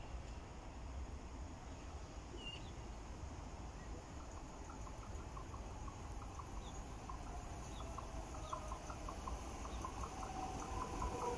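Blue double-deck TER electric train approaching along the line, its sound growing steadily louder, with faint rail clicks and a whine that falls slowly in pitch over the last few seconds. A few short bird chirps sound near the start.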